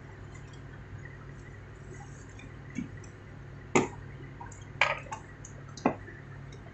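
Hand-tool and wire handling during control-panel wiring: a few sharp clicks and taps about four, five and six seconds in as a screwdriver and stiff wire are worked around the contactors and push-button blocks, over a low steady hum.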